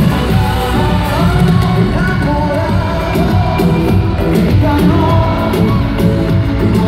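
Live Latin pop music over the arena sound system, a male voice singing into a handheld microphone over the amplified backing, heard from the stands.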